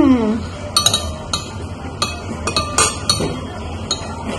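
Metal spoons and chopsticks clinking irregularly against ceramic bowls while eating, a string of sharp clinks. A short hummed "mm" at the very start is the loudest sound.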